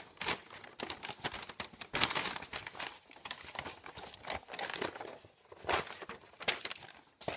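A paper instruction sheet rustling and crinkling as it is handled, in irregular crackles.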